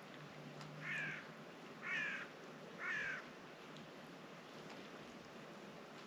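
A bird gives three short calls, about a second apart, over the steady wash of sea waves.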